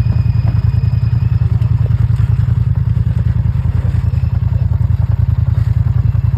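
ATV engine running steadily at low revs, with a fast, even putter.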